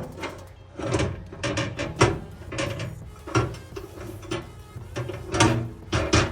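Irregular knocks and clatters of hard parts being fitted into a microwave oven, its roller ring and glass turntable tray set in place. There are about a dozen sharp taps, some ringing briefly.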